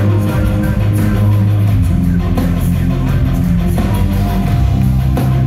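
Heavy metal band playing live through an arena PA: guitars, sustained bass notes and drums at a steady, loud level, recorded on a phone in the stands.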